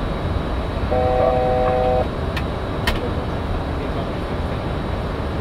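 Steady flight-deck noise of a Boeing 737-800, airflow and engine hum. About a second in, a steady electronic chime sounds for about a second, then come two sharp clicks.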